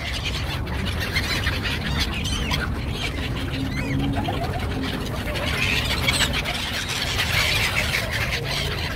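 Black-headed gulls and other waterbirds at a feeding spot, giving many short overlapping calls that are thickest about six to eight seconds in, over a steady low rumble.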